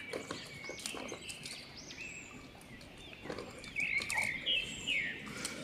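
Birds chirping, short high calls repeated in clusters, with scattered clicks and rustles from gray langurs feeding on grain scattered on the ground.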